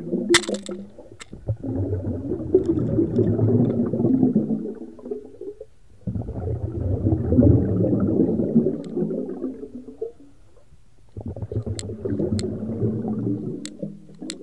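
Muffled underwater rumble picked up by a GoPro inside its waterproof housing, swelling and fading in three long waves of a few seconds each, with a few sharp clicks.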